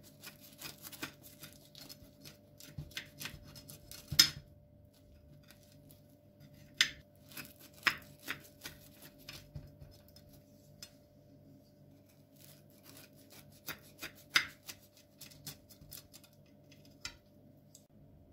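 Serrated knife slicing through the crisp crust of a pan-fried yufka börek: irregular crunching and crackling as the blade saws through the pastry, with a few louder sharp clicks about four, seven, eight and fourteen seconds in.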